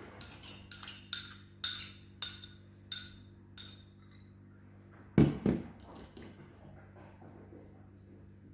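A kitchen utensil clinking repeatedly against a metal strainer over a bowl while grated onion is pressed through to strain out its juice: about seven light ringing clinks, then two heavier knocks about five seconds in.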